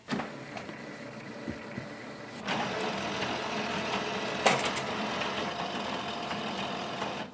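Epson WorkForce WF-7310 inkjet printer running as it prints a nozzle check sheet after a print head cleaning. The mechanism is quieter at first, gets louder about two and a half seconds in, and gives a sharp click about halfway through.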